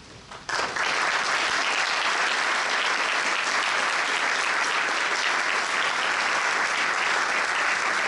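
Audience applauding, starting suddenly about half a second in and keeping up a steady, dense clapping.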